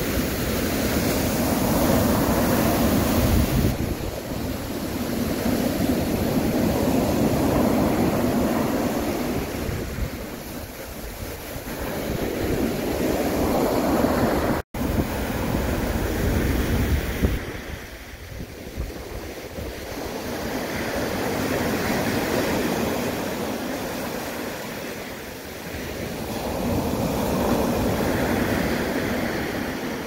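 Sea waves breaking and washing up a sandy beach. The surf swells and fades every several seconds, and it breaks off for an instant about halfway through.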